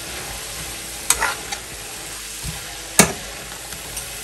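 Stir-fry of tofu and vegetables sizzling with a steady hiss in a frying pan as it is stirred with a plastic spatula, with two sharp knocks of the spatula against the pan, the louder one about three seconds in.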